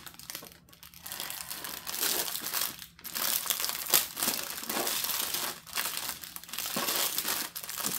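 Clear plastic wrap around a roll of diamond-painting drill bags crinkling and crackling as hands turn it and pull at it, in irregular rustles with a sharp crackle about four seconds in.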